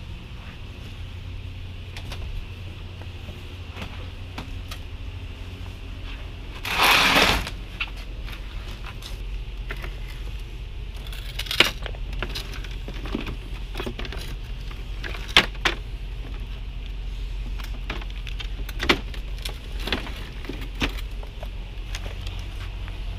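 Framed pictures being flipped through by hand, with several sharp clacks of frames knocking against one another, over a steady low hum. A louder rustling scrape lasts under a second about seven seconds in.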